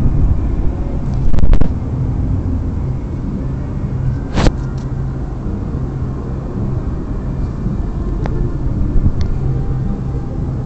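Steady low rumble of city street noise, with a few sharp clicks and knocks. The strongest come about a second and a half and about four and a half seconds in.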